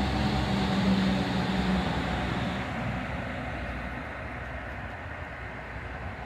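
A passing heavy vehicle running with a steady low pitched hum. The hum fades away after about two or three seconds, leaving a fainter steady rush.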